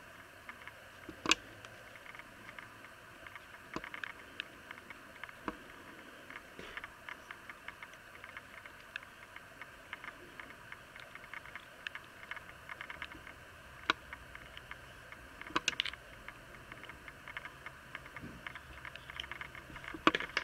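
Scattered clicks and taps from a plastic squeeze bottle of thick white glue being squeezed and handled over a plastic tub, with a loud click about a second in and a few more louder ones past the middle, over a steady background hiss.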